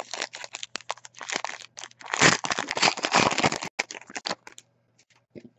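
Trading-card pack wrapper being torn open and crinkled in the hands: a run of crackling rustles, loudest about two to three and a half seconds in, stopping about four seconds in.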